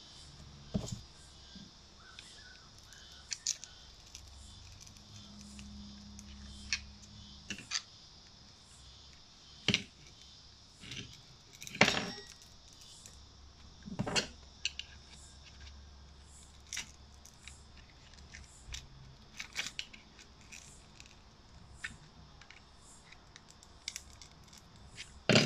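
A metal pry tool scraping and clicking against a ZTE MF910 pocket modem's plastic housing and battery edge as the battery is levered out. Scattered sharp clicks and short scrapes, the loudest about twelve seconds in.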